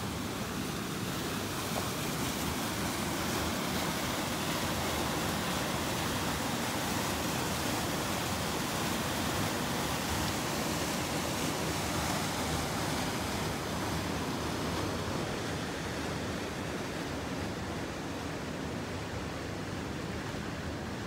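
Steady rush of creek water pouring into a rock pool, a dense even hiss that does not let up.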